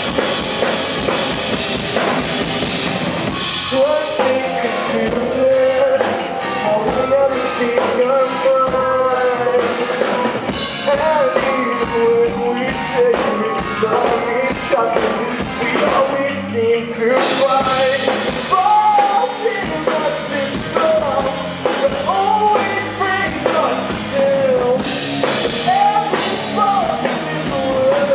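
Live rock band playing a song: drum kit, guitars and a lead vocal singing the melody. The band drops out briefly about halfway, then comes back in.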